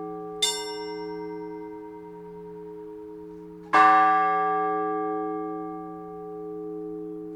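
Church bells rung slowly: a lighter, higher-sounding strike about half a second in, then a loud strike of a bigger bell just under four seconds in. Each rings on with a long, slow decay over the lower hum still sounding from earlier strokes.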